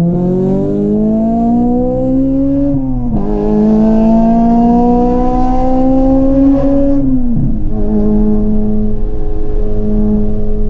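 Honda Civic EP3 Type R's 2.0-litre four-cylinder i-VTEC engine under hard acceleration, revving up through one gear, dropping in revs at a quick upshift about three seconds in, then revving up again. Near the end it falls off and holds at a steady lower pitch.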